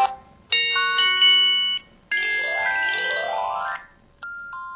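MS350 mobile phone's built-in alert tones played one after another through its speaker: a short electronic chime phrase, then a quick rising run of tones, then a two-note ding near the end.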